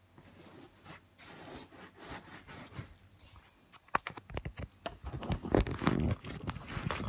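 Irregular rubbing, scraping and crinkling of hands handling the corrugated pump hose at the valve of a flocked air mattress, louder and busier from about four seconds in.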